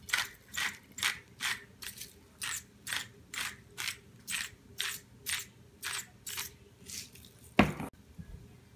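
Hand-turned salt grinder cracking Himalayan salt, with a rhythmic ratcheting crunch at about two twists a second, then a single louder knock near the end.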